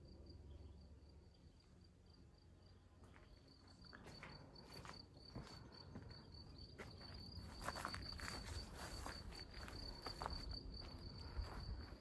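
An insect trilling steadily, a high, fast-pulsing note, with footsteps on grass and soft rustles coming in about four seconds in.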